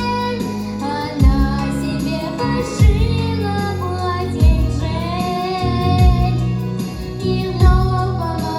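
A girl singing a pop song over backing music, with a heavy bass beat thumping about every second and a half under her held, wavering notes.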